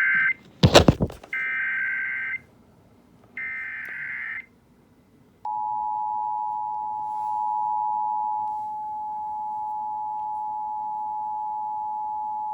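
Emergency Alert System tones: the end of the first SAME data header burst, a loud crackle, then the second and third bursts of about a second each. A second later the two-tone EAS attention signal begins, a steady tone held on. Together they mark the start of an emergency alert, here a National Weather Service severe thunderstorm warning.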